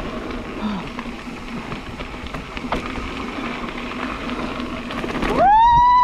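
Mountain bike rolling fast down a dirt singletrack: a steady rush of tyres on dirt and wind noise, with a few small knocks. A little over five seconds in, a loud high squeal rises in pitch and then holds steady; it is the loudest sound here.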